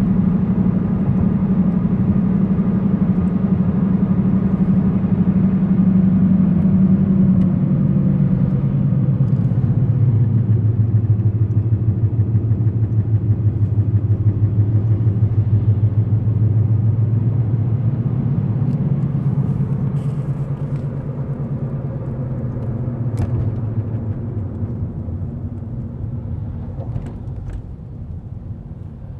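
Car in motion with a steady low drone that the owner suspects is a bad front driver's-side wheel bearing. The drone drops in pitch about eight seconds in, takes on a rhythmic wobble, and fades away near the end.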